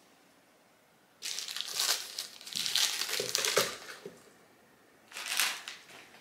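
Food packaging crinkling and crumpling as it is handled, in two bursts: a longer one about a second in and a short one near the end.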